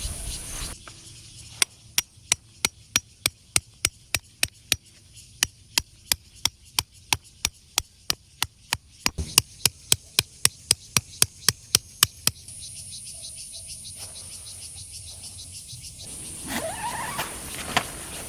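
A tent stake being hammered into the ground: a run of about thirty sharp strikes, about three a second, with two short pauses, stopping a little after halfway. Crickets chirp steadily behind.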